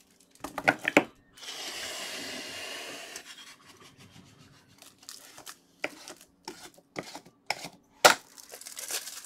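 Plastic wrapping on trading-card boxes or packs being handled and torn, with a couple of sharp clicks, then about two seconds of steady tearing rustle, then scattered taps and a loud knock near the end.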